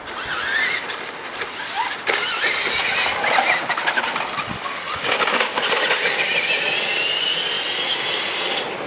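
Electric remote-control truck driving, its motor and gearbox whining and rising and falling in pitch as it speeds up and slows, over tyre and gravel noise. A long rising whine runs through the second half.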